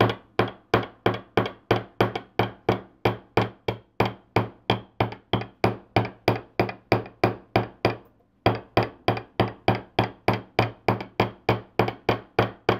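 Ball face of a jeweler's chasing hammer tapping 12-gauge copper wire against a steel bench block with light, even strokes, about four a second, each strike ringing briefly; there is one short pause about eight seconds in. The taps are dimpling the wire to give it a hammered texture.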